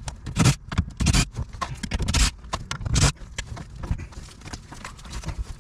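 Hand tools clanking and scraping on the truck's metal, with irregular sharp clunks that are loudest in the first three seconds, then softer scrapes and ticks.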